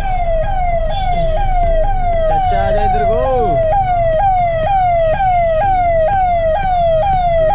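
Ambulance siren sounding in a repeating falling sweep, about two cycles a second, over a low rumble of traffic and engine.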